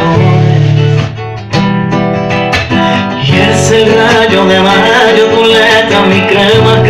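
Classical acoustic guitar strummed in a flamenco-pop rhythm, with a short break in the strumming about a second in. From about three seconds in, a man's singing voice comes in over the guitar.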